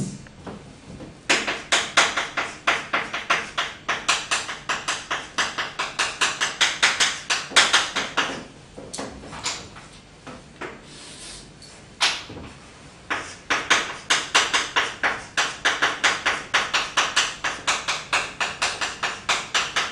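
Chalk writing on a blackboard: quick taps and scrapes of the chalk strokes, several a second, in two runs with a pause of a few seconds about halfway through.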